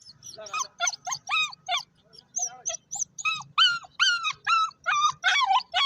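Dog whimpering and yipping in a rapid series of short high-pitched cries, about three or four a second, with a brief pause about two seconds in.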